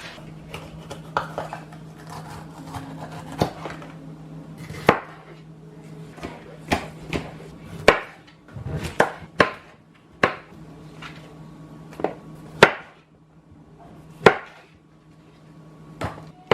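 Irregular sharp knocks of kitchen work at a counter, about a dozen, over a steady low hum that stops about three-quarters of the way through.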